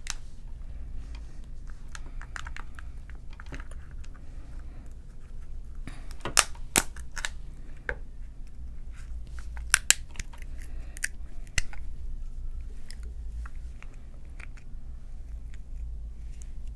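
Boiled crab and shrimp shells being cracked and peeled by hand, with chewing in between; a few sharp shell cracks stand out a little past the middle. A steady low hum runs underneath.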